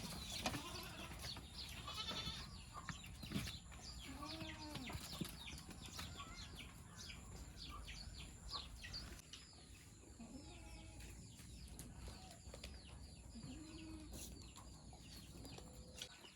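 Goats bleating now and then, about four short arched calls spread apart, with faint high chirping going on behind them.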